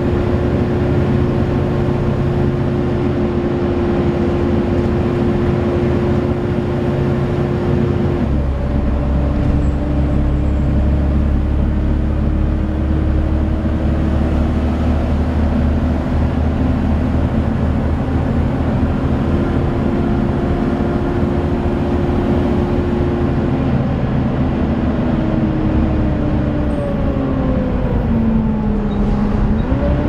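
Volvo B7TL double-decker bus running on the move, heard from inside the bus: its six-cylinder diesel rumbles under a steady whine from the engine cooling fan, loud like a hoover. The pitch shifts about eight seconds in, and near the end the tone dips and climbs again.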